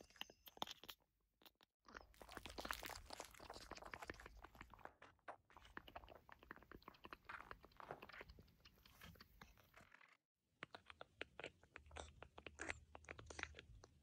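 Faint squishy crunching and clicking, a creepy-crawly bug sound effect for crawling insects. It breaks off briefly about a second in and again about ten seconds in.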